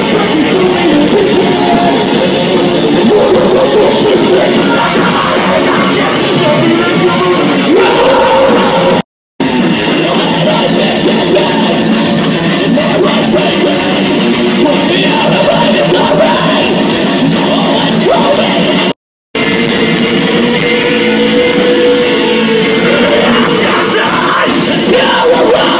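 Live heavy metal band playing loud, with electric guitar and sung and yelled vocals, recorded close to the stage. The sound cuts out completely twice for a moment, about 9 and 19 seconds in, where one clip ends and the next begins.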